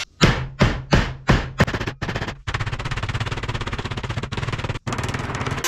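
A mallet striking the edge of a clamped sheet of sheet metal to bend it over the bench edge: about five separate loud blows in the first two seconds, then a fast, continuous run of rapid blows.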